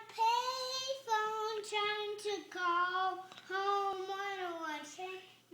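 A three-year-old boy singing a tune in a string of drawn-out, gliding notes with short breaks between them.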